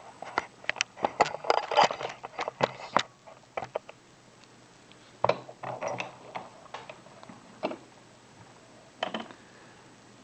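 Sharp metallic clicks and knocks as a plastic-coated padlock is handled and clamped into a vise, a rapid cluster in the first three seconds, then a few scattered clicks.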